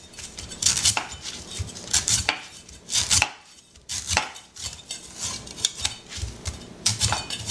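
Chef knife shaving the soft husk off a young coconut on a wooden cutting board: short scraping, chopping strokes at an uneven pace, with a brief pause about halfway through.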